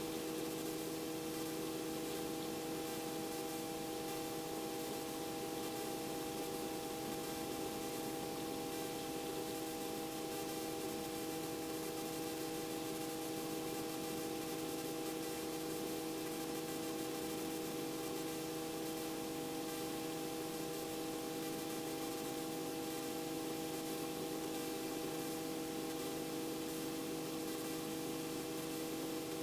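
Robinson R44 helicopter heard from inside the cabin: a steady drone of engine and rotors, several constant pitches over a hiss, unchanging throughout.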